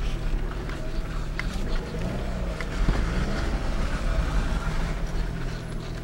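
Fiat Panda engine and road noise heard from inside the cabin while driving, with the engine note shifting once about two to three seconds in.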